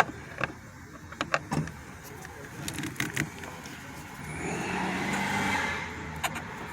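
Scattered sharp clicks and taps of a hand tool working a screw out of a car's plastic door panel, followed about four seconds in by a rushing noise with a low hum that lasts about a second and a half.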